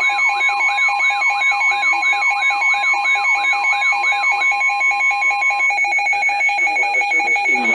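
Weather radio alert alarms sounding together: a steady single-pitch alert tone, a siren sweeping downward about three times a second, and fast pulsing beeps. The siren stops about four and a half seconds in and the steady tone near six seconds, while the beeps carry on.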